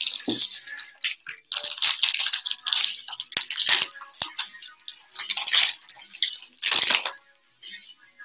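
Foil wrapper of a 2020 Bowman baseball card pack being torn open and crumpled by hand: a string of crinkling and crackling, loudest about seven seconds in.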